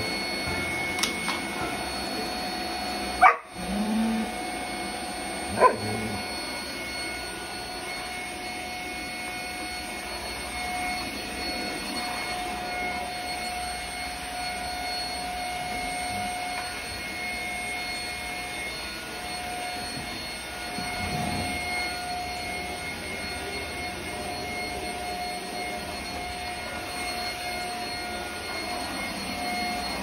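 Stick vacuum cleaner running with a steady whine, and a Belgian Malinois giving two short barks about two seconds apart, a few seconds in.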